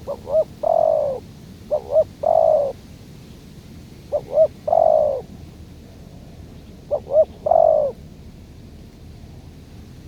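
Spotted dove cooing: four calls a couple of seconds apart, each two short notes followed by a longer coo that falls slightly in pitch.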